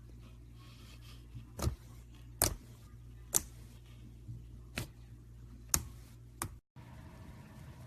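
Slime being pressed and played with, giving about six sharp clicks or pops at irregular intervals of roughly a second, over a steady low hum. The sound cuts out briefly near the end.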